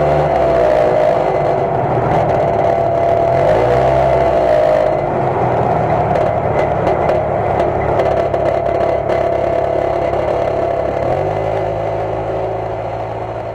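Jeep engine and exhaust running steadily, the engine pitch stepping up about three seconds in and again about eleven seconds in, with a light clatter of sharp clicks through the middle.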